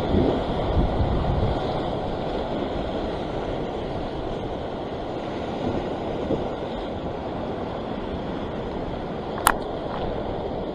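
Surf breaking and washing over a rock ledge, with wind buffeting the microphone, heavier in the first second or two. A single sharp click near the end.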